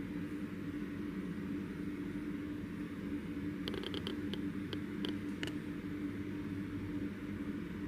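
Steady low mechanical hum with a faint hiss, like room air handling. A quick run of faint light clicks comes about halfway through.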